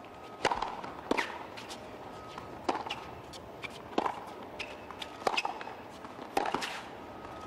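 A tennis rally on a hard court: a serve, then racket strings striking the ball back and forth, a sharp pop roughly every second and a half, with fainter clicks between.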